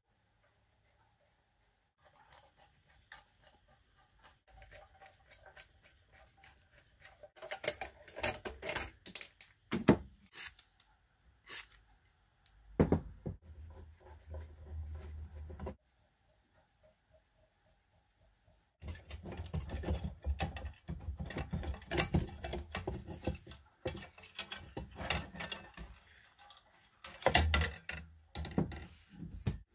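Hand tools and gloved hands working on the metal parts of an old pressure gauge as it is taken apart: irregular scraping, clicking and knocking in bursts. The start is quiet, and there is another quiet spell about halfway through.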